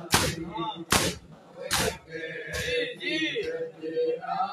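A group of men doing matam, slapping their bare chests in unison: three loud slaps a little under a second apart, then the men's voices chanting a mourning lament.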